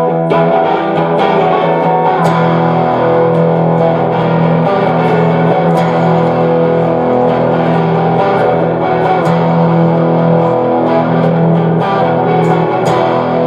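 Music: distorted electric guitar playing long, held chords, with little percussion.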